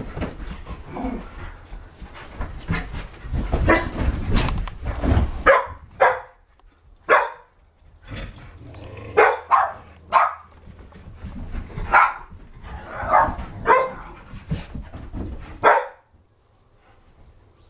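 Dogs, rough collies and an akita, barking at play: a dozen or so sharp barks in quick bursts, with low thumping from the romping in the first few seconds. The barking stops a little before the end.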